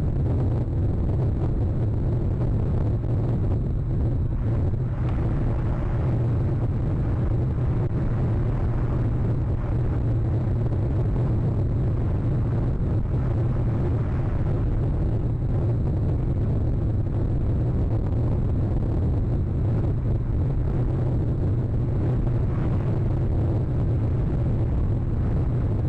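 Storm wind buffeting the nest camera's microphone: a steady low rumble with a hiss that swells in the gusts.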